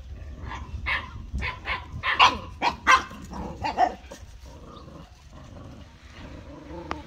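Dogs barking: a quick run of about eight sharp barks over the first four seconds, then the barking stops.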